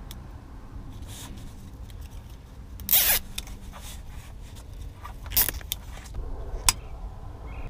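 Close scraping and rustling of a thin wire being worked by hand along a cable loom, over a steady low rumble, with three sharper scrapes about three, five and a half and nearly seven seconds in.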